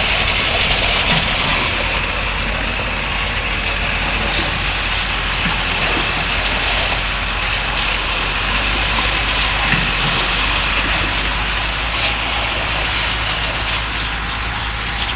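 Concrete pump truck's engine running steadily and loud, with a constant low hum under a wide, even noise.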